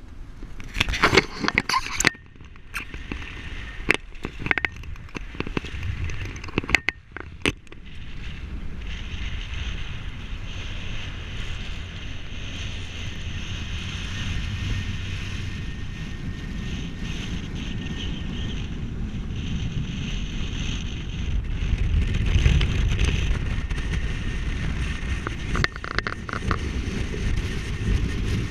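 Strong wind buffeting a small camera's microphone, a steady rumbling rush that grows louder in a gust about three-quarters of the way through. Several sharp clicks and knocks from the camera being handled are heard in the first several seconds.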